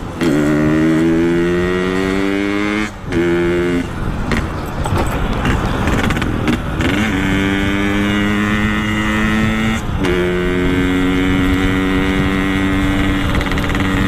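Yamaha RX-King's two-stroke single-cylinder engine, breathing through a Boban C33 aftermarket exhaust, pulling under way: the note climbs steadily, drops back at gear changes near the start, about three seconds in and about ten seconds in, and holds a steady pitch in between.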